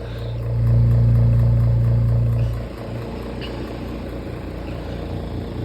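Small 6-inch antique electric fan running with a low motor hum and a buzzing rattle, vibrating because its blades are off balance. The hum swells louder about half a second in, then drops back to a steadier level after two seconds or so.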